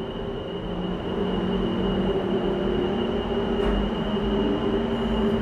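Disney Skyliner gondola station machinery, the bull wheel and the engine driving it, running with a steady mechanical hum and a thin high whine above it. It grows slightly louder and is heard from inside a cabin passing through the station.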